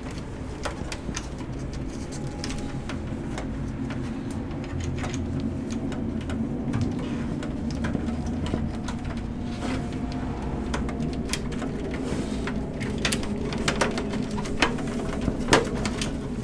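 Cables being handled inside a desktop PC case: scattered light clicks and knocks of connectors and cable against the metal chassis, more frequent near the end, over a steady low hum.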